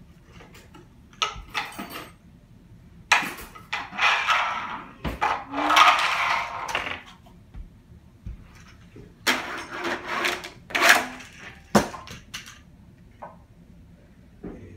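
Toy monster trucks clattering and rolling on wooden and plastic ramps: a string of sharp knocks and rattles, with two longer stretches of rolling clatter in the middle.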